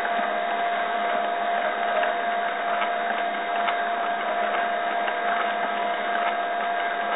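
Cyclone PCB Factory CNC mill running, its spindle and end mill cutting a groove in MDF: a steady whine over a constant cutting hiss, with a few faint ticks.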